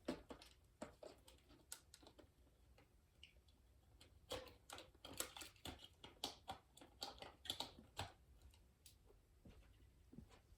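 Faint, irregular clicks and light rustles of packaging and a plastic handset being handled, as the phone is unpacked. The clicks come thickest in the middle stretch.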